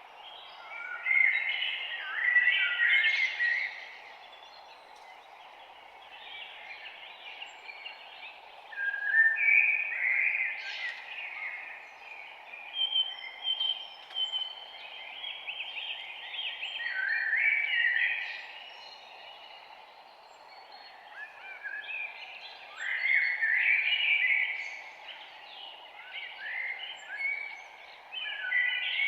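Songbirds singing in warbled phrases that come every few seconds, some overlapping, over a steady background hiss.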